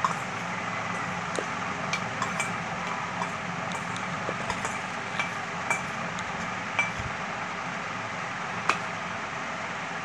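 Metal spoon and miniature steel pots clinking and tapping against each other as rice is tipped in and stirred: about a dozen light, sharp clinks, some with a short high ring. A steady background noise runs underneath.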